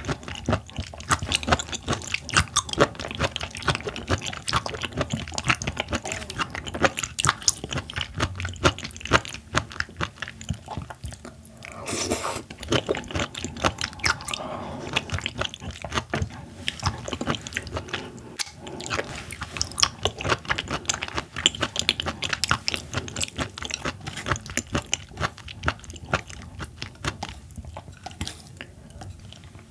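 Close-miked chewing and crunching of seafood, many quick wet bites and crunches one after another.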